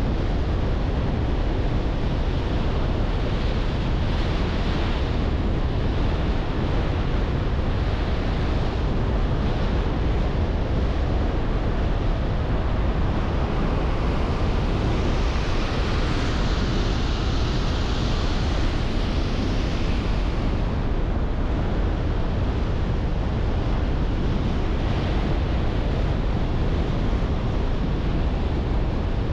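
Steady road noise from a car driving: a low rumble of tyres on the road with wind across the microphone. A brighter hiss swells for about six seconds past the middle, then fades.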